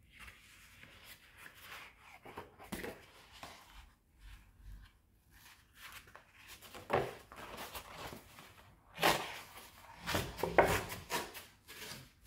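Sheet of heavy rough watercolour paper being folded and creased by hand, then pressed and rubbed flat against a wooden tabletop: rustling and scraping, with louder strokes about seven and nine seconds in and a longer run near the end.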